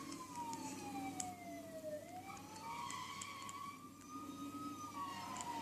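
A siren-like wail: one tone that falls slowly for about two seconds, rises back up, and begins to fall again near the end.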